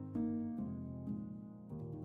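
Instrumental background music: a string of struck, piano-like notes over held chords.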